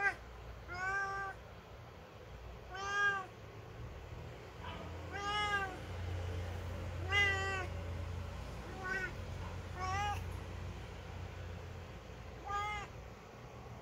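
Ginger domestic cat meowing: about eight short meows, each rising and falling in pitch, a second or two apart.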